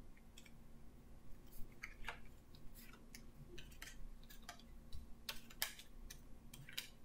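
Faint, irregular light clicks and taps of picture flashcards being handled and sorted, a dozen or so spread unevenly over several seconds.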